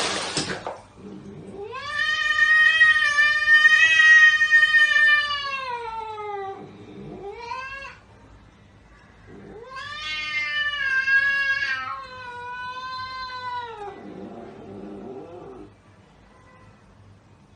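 A cat yowling: two long, drawn-out calls, each rising at the start and sliding down in pitch at the end, with a short rising meow between them.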